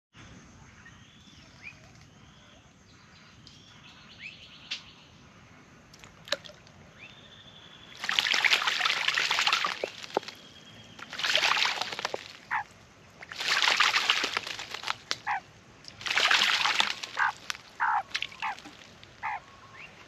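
Australian magpie bathing in a bird bath: four bouts of vigorous splashing, each one to two seconds long, starting about eight seconds in. Faint bird calls before and between the bouts.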